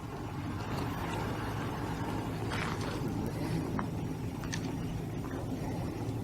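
An engine idling steadily, a low even hum, with a few faint clicks and knocks.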